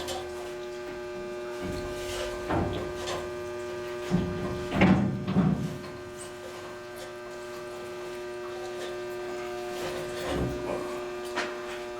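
Steady electrical hum, with several clanks and scrapes of cast-iron boiler door clamps and the heavy boiler door being worked loose. The loudest run of clanks comes about four to five seconds in, and a further one near the end.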